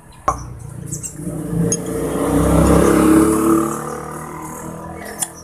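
A motor vehicle passes by, its engine sound swelling to a peak about three seconds in and then fading away. A sharp click sounds just after the start and another near the end.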